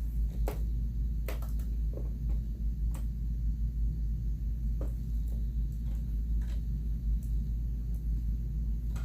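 A few scattered light clicks and ticks from handling a sewing machine while it is being rethreaded, over a steady low rumble.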